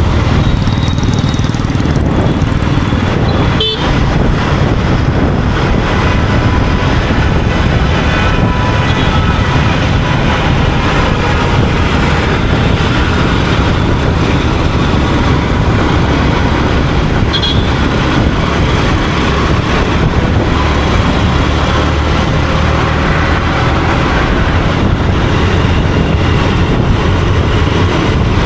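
Yamaha MT-15's 155 cc single-cylinder four-stroke engine running steadily as the motorcycle rides through city traffic, with other vehicles around and horns sounding in the traffic.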